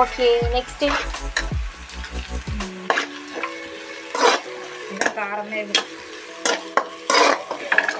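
Steel slotted spoon stirring and scraping chopped shallots, green chillies and dried red chillies frying in oil in a kadai, with irregular scrapes and taps of the spoon on the pan over a steady sizzle.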